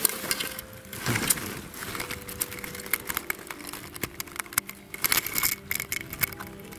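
Rustling and crackling of a tent blind's fabric being handled, with many scattered sharp clicks.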